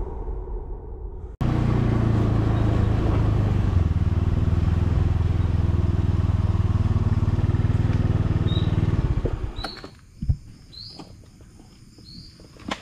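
Motor scooter engine running steadily, then shut off about nine and a half seconds in. A moment of intro music comes before it, and a few short high chirps follow near the end.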